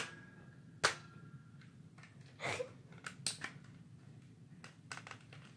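Sharp plastic clicks and knocks from a jammed toy eraser maker being handled and prodded: a loud snap at the start, another about a second in with a brief ring, a rustle, then a couple of lighter clicks and faint ticks.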